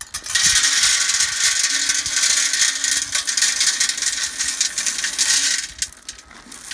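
An old corn planter's metal mechanism rattling and clattering continuously as it rolls along sowing corn. It stops about six seconds in, then starts again briefly at the very end.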